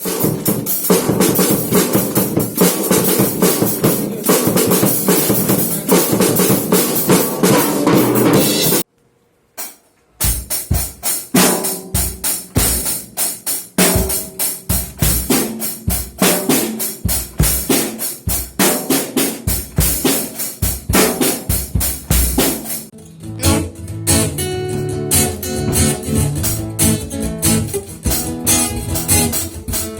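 Drum kit played loudly: a dense stretch of playing, a brief break about nine seconds in, then a driving beat of sharp strokes. Other pitched instruments join the drums for the last several seconds.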